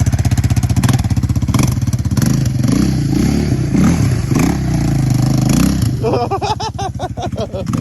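Yamaha Raptor 700 ATV's single-cylinder four-stroke engine running hard, its pitch rising and falling as the throttle is worked through donuts.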